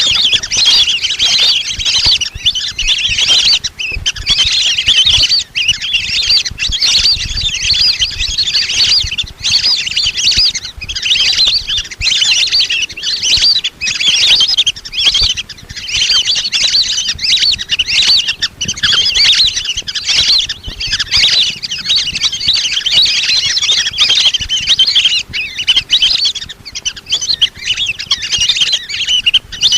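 A flock of lesser whistling ducks keeping up a continuous chorus of high whistling calls, many voices overlapping.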